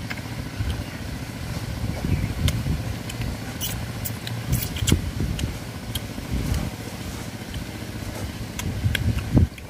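Gusty low rumble of wind buffeting the microphone, swelling a few times and loudest just before the end, with scattered small clicks and smacks of people eating with their fingers.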